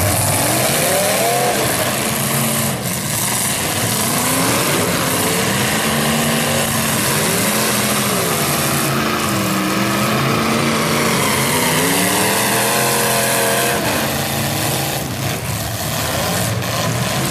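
Stock demolition derby cars' engines revving hard, their pitch rising and falling over and over as the cars push and ram against each other.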